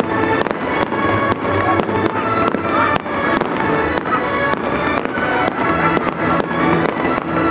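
A fireworks display going off in quick, irregular succession, with many sharp cracks and pops, over loud music with held tones.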